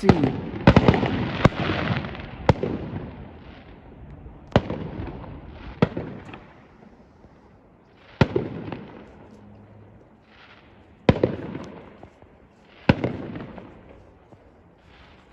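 Fireworks display: a series of big aerial shell bursts, about eight sharp bangs at uneven intervals, each trailing off in an echoing tail.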